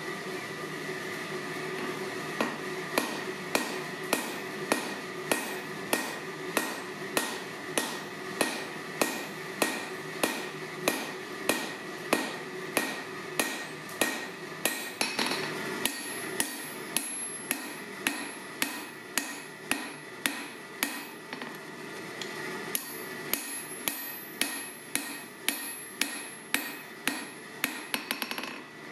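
Hand hammer striking red-hot steel on an anvil, about two blows a second, while a claw hammer head is being forged. The blows pause briefly twice and come quicker near the end, over a steady background hum.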